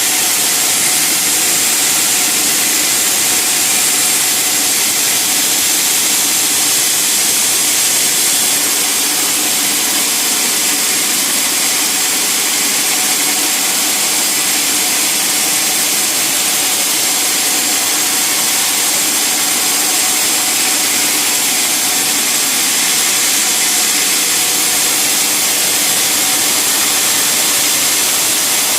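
Sawmill saw and machinery running steadily, a loud, unbroken, hissy noise with no pauses or changes.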